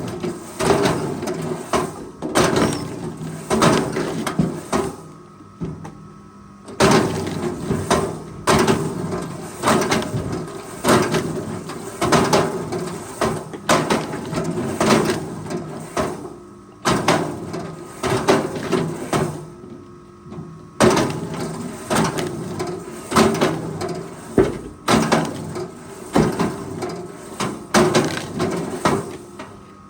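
Forestry machine at work: engine running steadily under repeated heavy wooden knocks and clunks as logs are handled, with brief lulls between bouts.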